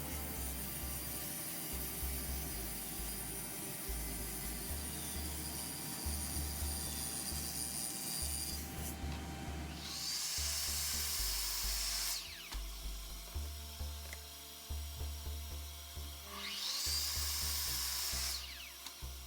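Festool Domino joiner running as it cuts mortises for loose-tenon joints. It runs steadily and stops a little before halfway, then is started twice more for short cuts, each time spinning up and winding down. Background music with a steady beat underneath.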